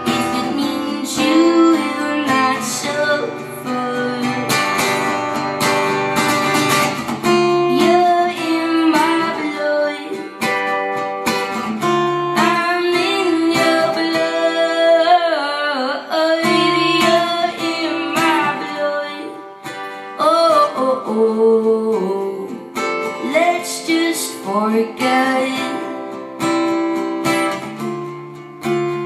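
Live acoustic guitar playing with a woman singing over it, her voice sliding and wavering between notes.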